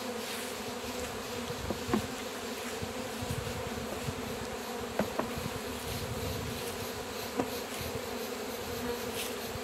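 Honeybee colony buzzing at an open hive: a steady drone of many bees, with a few faint clicks.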